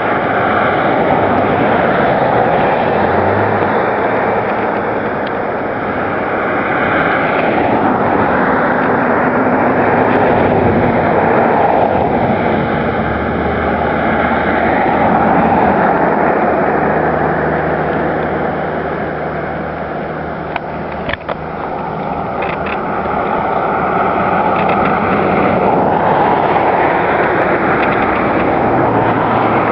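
Steady vehicle running noise, slowly swelling and easing, with a faint low engine hum and a brief click about two-thirds of the way through.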